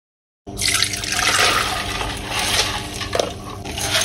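Water poured from a steel pot through a fine mesh steel strainer, draining off soaked horse gram, with a steady rush of water splashing into the bowl below. It starts about half a second in, after a moment of silence.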